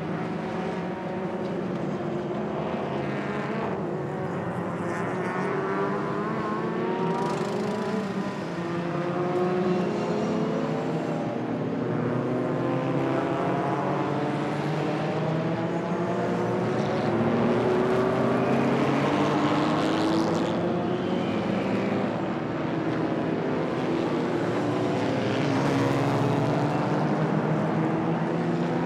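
Racing car engines revving as cars pass on the circuit, each climbing in pitch through a gear and dropping back at the shift, several at a time and overlapping.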